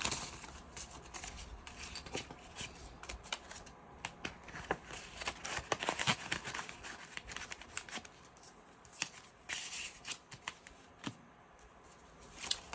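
Paper dollar bills and a plastic binder envelope being handled: irregular crisp rustles and crinkles as the bills are shuffled and slid into the sleeve.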